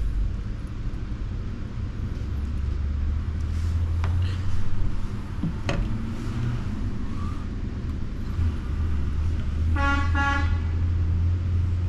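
A steady low rumble with a couple of light clicks of a fork on a plate, and a short horn-like toot of under a second near the end.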